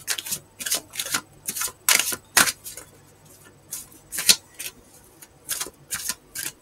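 A tarot deck being shuffled by hand: irregular sharp card clicks and snaps, about three a second, with short pauses between runs.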